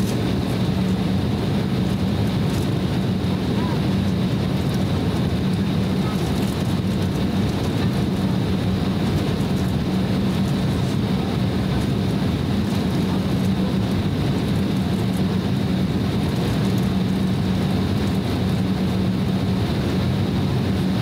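Cabin noise of an Embraer E190 airliner taxiing: a steady hum from its General Electric CF34-10E turbofan engines at taxi power, with a low steady drone and a faint high whine.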